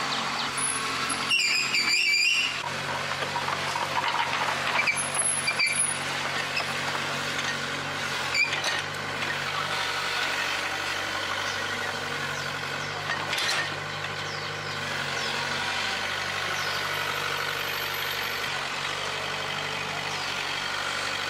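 Excavator engine idling steadily, with a few short higher-pitched noises breaking in, the clearest about two seconds in.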